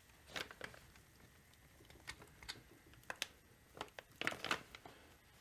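Scattered light clicks, taps and rag rustles from hands working small parts out of a chainsaw's clutch side, with a quick cluster of sharper clicks near the end.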